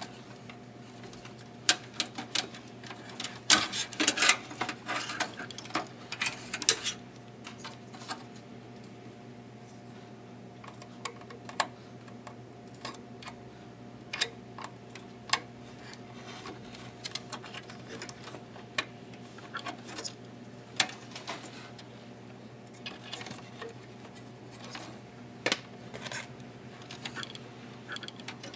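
Scattered clicks, taps and rustling as hands move plastic-sheathed power-supply cables and connectors inside a desktop computer case, and a sharp metal tool clicks against the motherboard's coin-cell battery holder as the battery is pried out. The clicking and rustling are busiest about four to seven seconds in, over a steady low hum.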